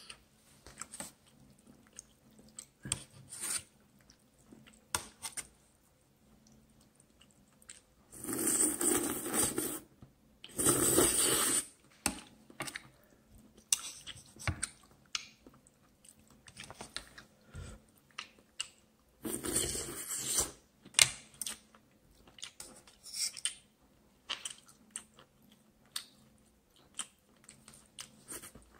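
Close-up eating sounds from a bowl of Korean instant noodles: chewing, and steel chopsticks clicking and scraping in an aluminium pot. Three long, loud slurps stand out, two close together about eight and eleven seconds in and one more about nineteen seconds in.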